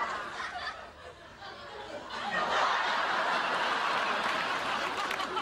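Sitcom studio audience laughing: the laughter dips about a second in, then swells and holds steady.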